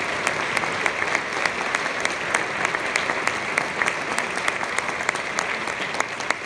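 Audience applauding steadily, with sharper single claps from close by standing out.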